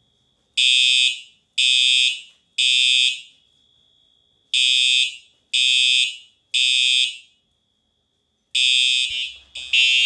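Simplex 4906-9126 TrueAlert fire alarm horn sounding the temporal-three evacuation pattern: three loud, high-pitched half-second blasts about a second apart, a pause, then three more, repeating.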